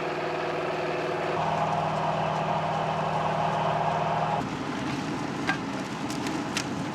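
Riecam RBM 300 sugar beet harvester working, its air-cooled Deutz V8 engine running steadily. About four seconds in the steady note gives way abruptly to a rougher, noisier running sound with a few faint clicks.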